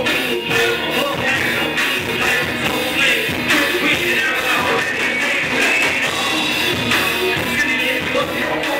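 Live rock band playing: a singer over electric guitar, keyboard and a drum kit, with a steady driving beat.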